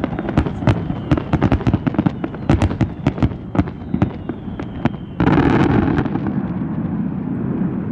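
Fireworks display: a rapid run of sharp bangs and cracks, several a second. About five seconds in, a sudden, louder, unbroken wash of sound starts and slowly fades.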